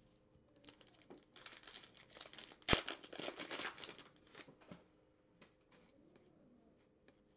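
Foil wrapper of a Panini Contenders football card pack being torn open and crinkled by hand, with one sharp loud rip about two and a half seconds in. Only faint card-handling ticks follow.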